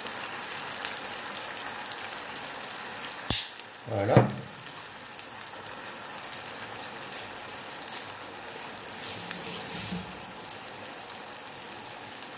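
Water and pan juices sizzling in a hot sauté pan around a browned chicken roll, just after the water has gone in. There is a single sharp click a little over three seconds in.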